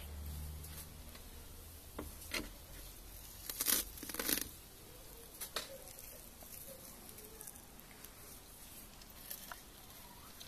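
Dog biting and tearing off mouthfuls of cat grass: a few short crunchy rips, the loudest cluster about four seconds in, then quieter chewing.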